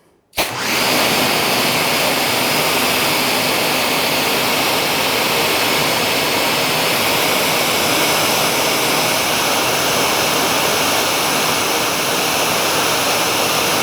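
Four Ryobi electric pressure washers running together and spraying through a 9.5 nozzle at around 900 to 950 PSI: a loud, steady hiss of water and motor hum that starts suddenly about half a second in as the spray begins.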